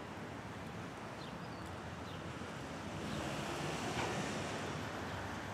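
Steady rush of wind on the microphone of a cyclist riding along city streets, with faint traffic noise, swelling slightly about three to four seconds in.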